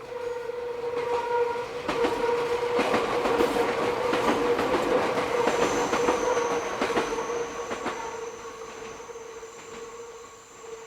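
Meitetsu train wheels squealing on the tight Inuyama curve as the train runs past, with steady whining tones over the clatter of wheels on the rails. The clatter builds to its loudest in the middle and fades near the end, and a higher-pitched squeal joins about halfway through.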